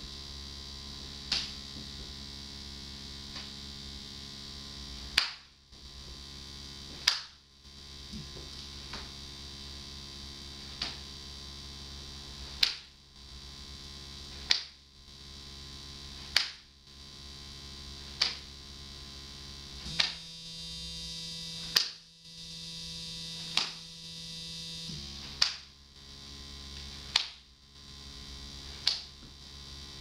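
Sharp slaps of a leather belt's strap end striking a man's backside, one roughly every two seconds, some fainter than others. Under them runs a steady electronic noise drone from a laptop setup, whose pitch shifts about twenty seconds in.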